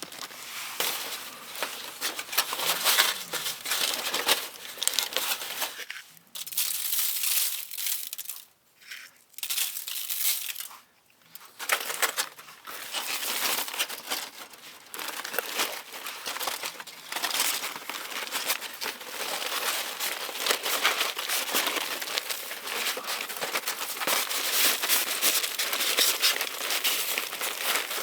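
Crinkling and crumpling, like packaging or wrapping being handled, in dense crackly bursts with two short pauses partway through.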